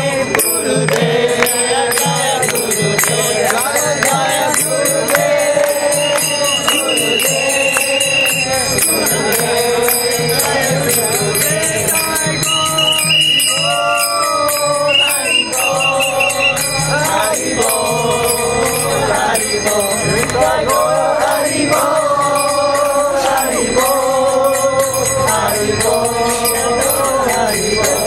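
A group of devotees chanting a kirtan in call-and-response phrases, with small hand cymbals clashing in a steady rhythm throughout.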